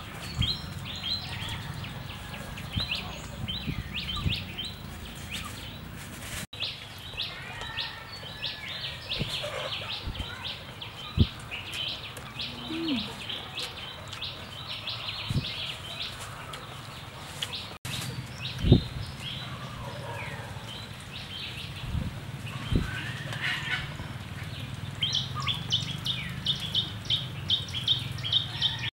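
Birds chirping in rapid runs of short high notes, busiest near the end, with a few soft knocks.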